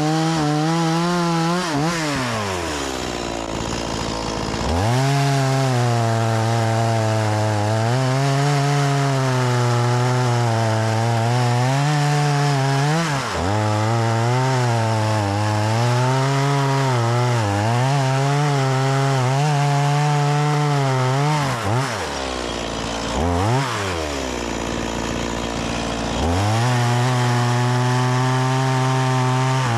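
Stihl MS 180 C-BE two-stroke chainsaw bucking firewood logs at full throttle, its pitch wavering as the chain loads up in the cut. It drops to idle about 2 s in and again about 22 s in, with a quick throttle blip during the second pause, and revs back up each time.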